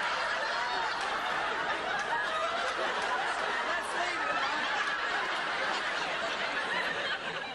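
Many people laughing together, sustained and steady: audience laughter.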